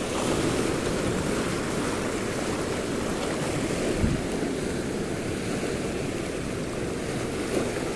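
Sea surf washing steadily, a continuous rushing noise, with wind buffeting the microphone. A single soft low knock about four seconds in.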